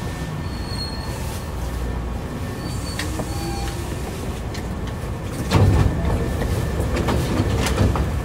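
Hankyu 3300-series resistance-control train running on the Sakaisuji subway line: a steady rumble of wheels on rail with a few brief high wheel squeals, and a louder clatter about five and a half seconds in.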